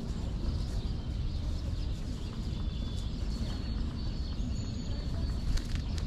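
Faint, high, thin calls of small songbirds over a steady low rumble. A few soft flutters and taps come near the end as a tufted titmouse flies in to land on the gloved hand.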